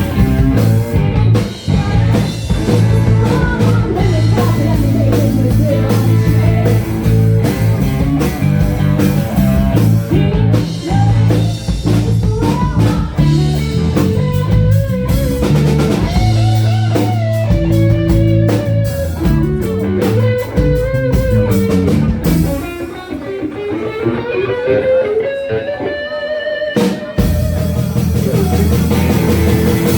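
Rock band playing: guitar over bass and drum kit. About two-thirds of the way in, the bass and drums drop out, leaving a lone line of sliding, bending notes. The full band comes back in about five seconds later.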